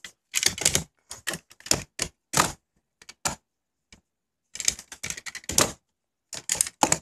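Toy Lamborghini model cars being picked up, turned and set down on a tabletop: short bursts of clattering and clicking, about eight times, with quiet gaps between.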